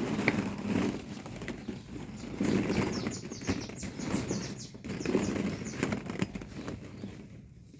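Plastic ball-pit balls rustling and clattering as they are stirred, in swells every couple of seconds, with a run of quick light clicks about halfway through.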